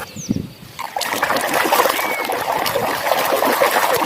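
Water running and splashing over a muddy plastic toy as it is washed by hand, starting about a second in after a few soft knocks.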